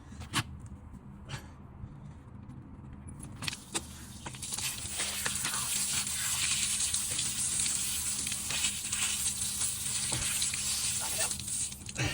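A steady hiss starts about four seconds in and dies away near the end, after a few sharp clicks, over a constant low hum.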